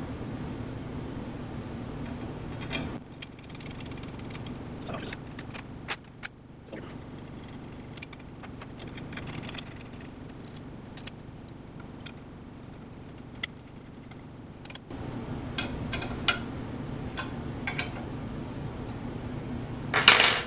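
Small metallic clicks and taps of steel bolts being handled and fitted into an aluminium spindle mount clamp by hand, over a steady low hum. The hum drops out for several seconds in the middle. A sharper, louder metal knock comes near the end.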